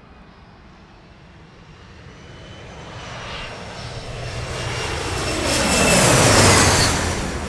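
Regional airliner passing close by, its engine sound swelling over several seconds to a peak near the end and then fading, the whine dropping in pitch as it goes past.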